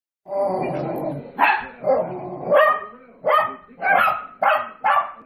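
Small dogs barking at dogs on a television screen: after about a second of a drawn-out, steady sound, a quick run of about seven sharp barks, less than a second apart.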